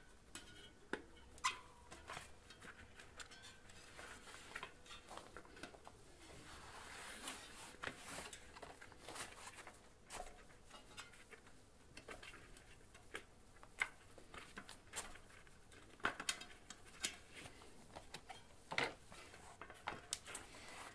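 Faint rubbing, with scattered clicks and taps, as a bicycle tyre is worked by hand onto the wheel rim, its first side going over the rim edge.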